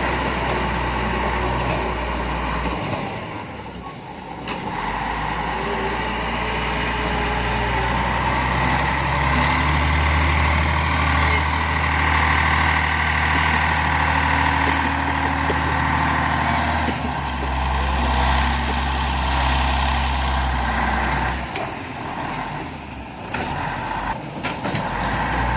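Diesel engine of a Caterpillar 960 heavy construction machine running, its engine note stepping up and down several times as it is throttled, easing off briefly a few seconds in and again near the end.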